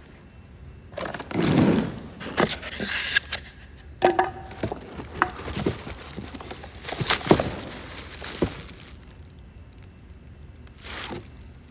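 Irregular clicks, knocks and scrapes of objects being handled, most of them in a cluster after about a second and dying away after about nine seconds, with one more short scrape near the end.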